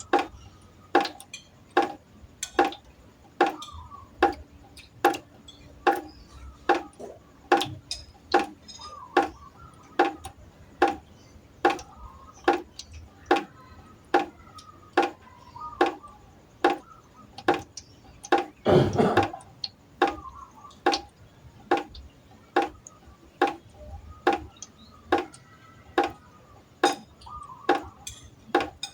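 Water drops falling one at a time into a pot at an even pace of about one and a half a second, each a sharp plink with a brief ringing note. A longer, louder splash comes about two-thirds of the way through.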